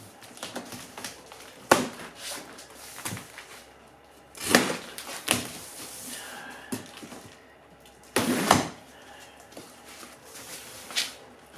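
Cardboard shipping box of a table saw being opened and handled: a handful of separate sharp knocks and brief scrapes, with quiet handling in between.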